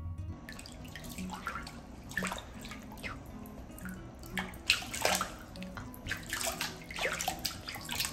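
Water splashing and dripping in a filled bathtub as a hand moves in it, in irregular splashes, over soft background music. Guitar music cuts off about half a second in.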